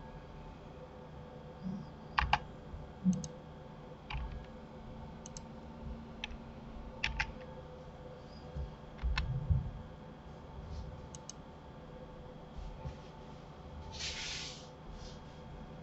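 Computer keyboard and mouse clicks: irregular single taps and quick pairs, about a dozen in all, over a faint steady hum. A short rustling hiss comes about 14 seconds in.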